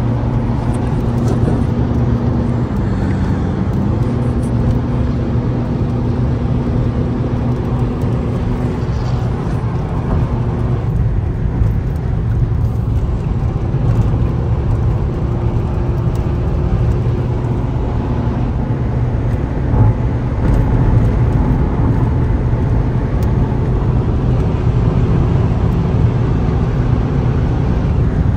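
Inside the cabin of a Mercedes-Benz car at speed: steady engine drone with road and wind rumble. The engine's pitch steps briefly about three seconds in.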